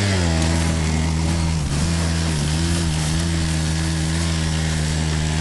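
Quad (ATV) engine pulling at a steady pitch after accelerating away, easing off briefly twice about a second and a half to two and a half seconds in.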